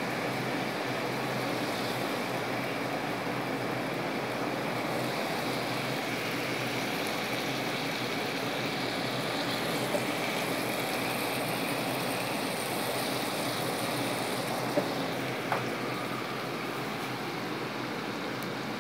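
Soy-marinated salmon fillets sizzling steadily in a nonstick frying pan over high heat, with a few light taps of a utensil against the pan about ten and fifteen seconds in.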